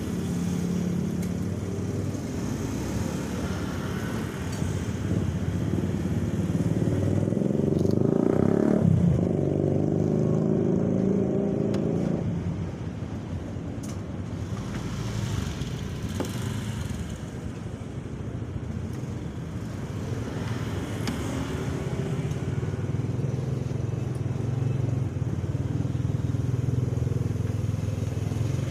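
Street traffic going by, mostly motorcycle engines running, with one vehicle passing close and loudest between about seven and twelve seconds in, its engine pitch rising and then falling.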